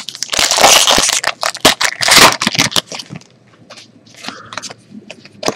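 A Topps Valor football card pack wrapper being torn open and crumpled: dense crackling for about two and a half seconds, then fainter crackles and rustles as the cards come out.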